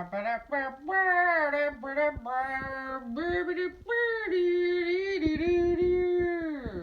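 A woman singing a short solo tune with no accompaniment heard. It moves through several notes and ends on one long held note that slides down near the end.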